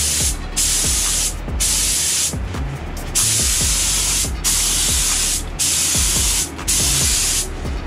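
HVLP gravity-feed spray gun spraying paint onto a motorcycle fairing in short passes. It makes a loud hiss of air and paint lasting about a second each time, about seven times in a row, with brief breaks as the trigger is let off between passes.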